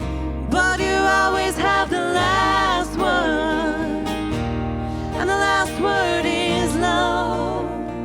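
Live worship band playing, with voices singing over guitars and sustained bass notes.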